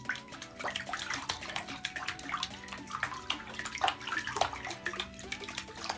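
Cat pawing and batting at water in a bathtub, making a quick irregular run of small splashes and drips.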